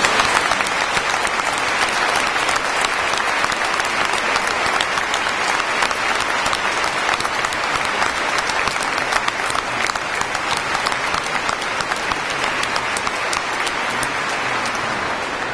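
Sustained applause from a large congregation, many hands clapping at once; it tails off near the end.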